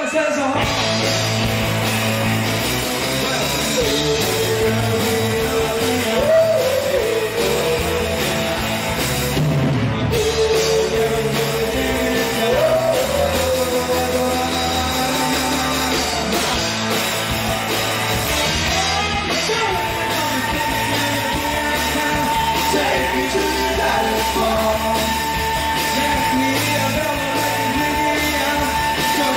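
Live rock band playing, with drum kit, guitars and a singing voice. A steady high held note comes in about twenty seconds in and carries on.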